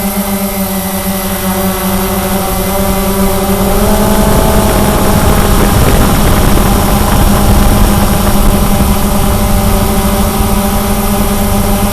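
Cheerson CX-20 quadcopter's brushless motors and propellers humming steadily. The pitch steps up slightly about four seconds in, and a rushing noise grows louder through the middle.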